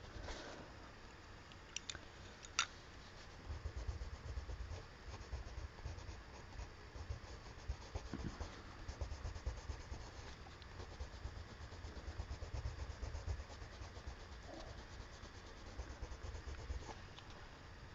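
Faint scratching and rubbing of a colored pencil working across paper, with low bumps of hand and paper on the desk and a couple of sharp clicks about two seconds in.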